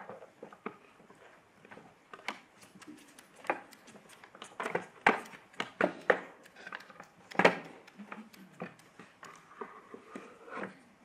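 Irregular knocks, taps and footsteps on a wooden stage floor as stage crew set up props, with two louder thumps about five and seven and a half seconds in.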